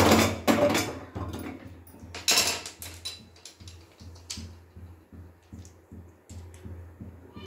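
Aluminium pressure cooker's lid and handles knocking and clattering as the lid is locked shut, a few sharp metal knocks in the first second and one more a little after two seconds; after that only faint ticks and a low hum.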